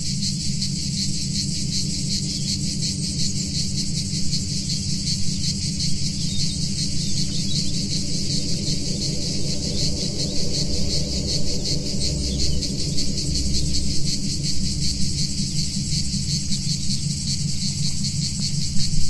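Field recording of cicadas: a dense, steady, high buzz with a fine rapid pulse, layered over a low analog synthesizer drone of held tones. A deeper rumble swells in the middle.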